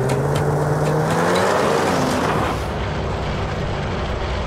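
Snowmobile engines running. The pitch rises over the first second or so as one sled speeds up. Just past halfway the sound changes abruptly to a steadier engine note heard from aboard a snowmobile.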